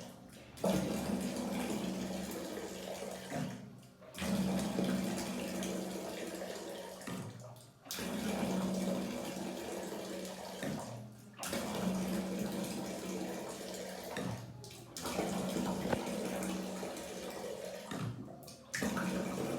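Water rushing out of a water heater as the tank is drained to flush out sediment, with a steady low hum under it. The flow breaks off sharply for a moment about every three and a half seconds, then comes straight back.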